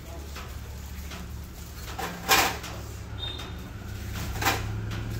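Handling knocks at a butcher's chopping block: a loud knock about two seconds in and a lighter one about four and a half seconds in, over a steady low hum.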